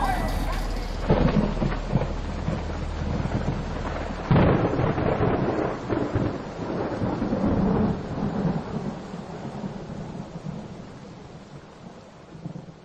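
Thunder rumbling over a steady hiss of rain, with sudden swells about one and four seconds in, then slowly fading out.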